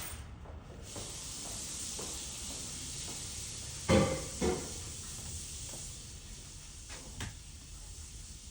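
Two sharp knocks about half a second apart, then two fainter ones near the end, over a steady hiss.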